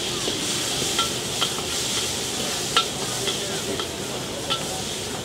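Food sizzling and hissing in hot oil in a large wok during stir-frying. A metal ladle and spatula clink sharply against the wok about six times.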